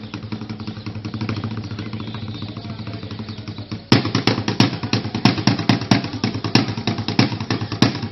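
Drum beating a rhythm over a steady low hum. The strikes grow sharply louder about four seconds in and then keep going at a few beats a second.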